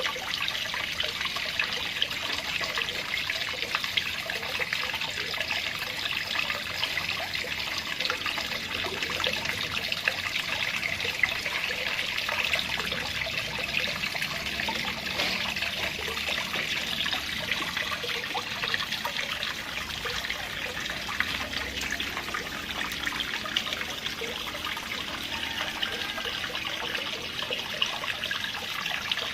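Water trickling and splashing steadily into a small homemade cement pond, kept circulating by an aquarium pump.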